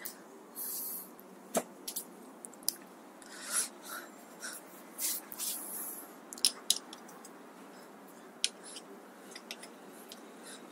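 Light handling sounds of bicycle brake parts being worked on by hand: scattered small clicks and ticks mixed with short, faint rubbing and hissing sounds.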